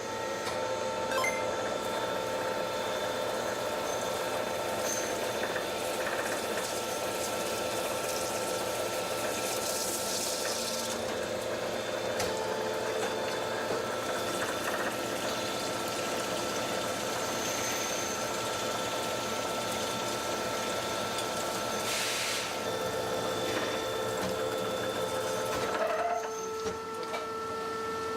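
Factory machinery running steadily with a constant hum over a noisy haze, with a short burst of hissing about a third of the way in and another about three quarters through.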